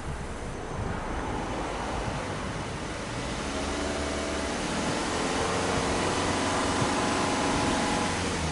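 Exhaust note of a Subaru Impreza Sport 2.0i's 2.0-litre flat-four (boxer) engine, running with the revs raised slowly, held for a few seconds, then easing back near the end.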